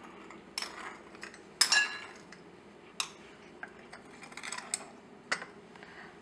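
Metal spoons clinking and tapping against small ceramic bowls as spices are scooped out: a handful of separate clinks. The loudest, about a second and a half in, rings briefly.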